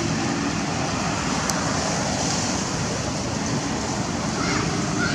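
Steady rushing outdoor background noise, with one faint click about a second and a half in.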